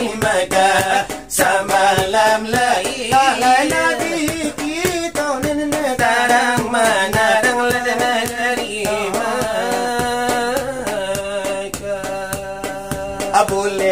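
Selawat dulang: men's voices singing a Minangkabau Islamic devotional song while they beat large brass trays (dulang) with their fingers and palms, giving a continuous patter of dull metallic strikes under the melody.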